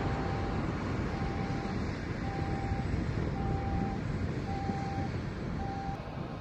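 Steady jet aircraft noise at an airport at night, with a single-pitch electronic beep sounding about once a second, each beep about half a second long.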